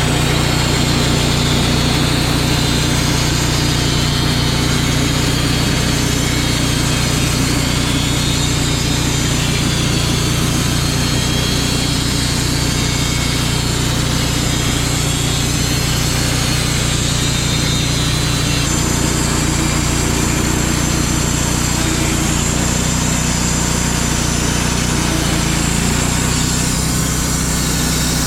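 Wood-Mizer portable band sawmill running steadily under load as its band blade cuts through a black walnut log. The engine note shifts slightly about two-thirds of the way through.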